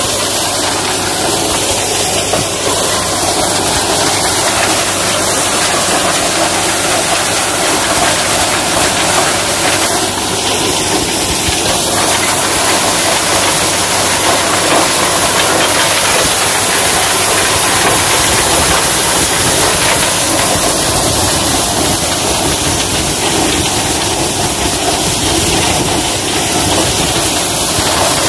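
Tractor engine driving a corn threshing machine, running steadily and loudly: a constant engine hum under a dense hiss from the thresher.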